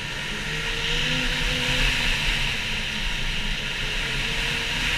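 Ski-Doo MXZ Blizzard snowmobile with its 900 engine running steadily under way on a groomed trail, its tone rising a little about a second in, over a steady hiss of wind and track noise.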